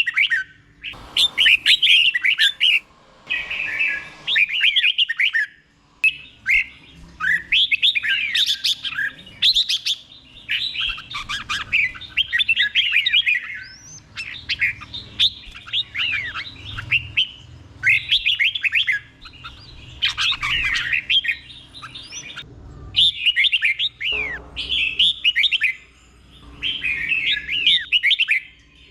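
Red-whiskered bulbul singing the 'doubled' song style: short phrases of bright, quick chirping notes, each a second or two long, repeated with short pauses between.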